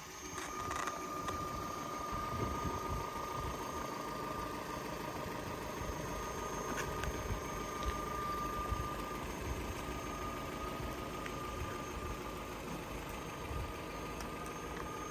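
Car engine idling steadily, with a thin steady whine above it.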